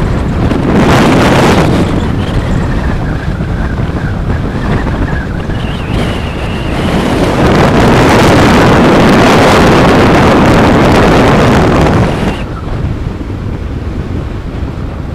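Strong hurricane wind buffeting the microphone, over a steady wash of surf. The heaviest gusts come about a second in and again from about seven to twelve seconds in, then the wind drops off suddenly.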